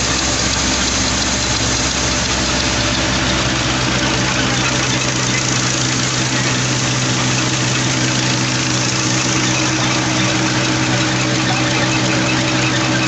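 A Massey Ferguson 240 tractor's diesel engine running steadily under load, belt-driving a flour grinding mill, with the mill's even grinding noise over the engine note.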